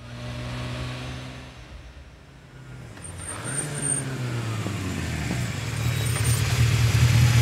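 Motor vehicle engines running and revving. The sound swells about three seconds in and is loudest near the end.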